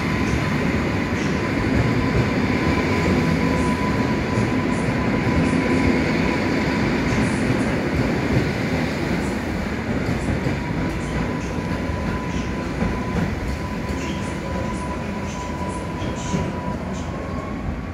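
EN57AL electric multiple unit pulling out of the station past the platform and drawing away, with a steady high electric whine that starts to rise near the end, scattered clicks of the wheels over the track, and loud running noise that eases off as the train recedes.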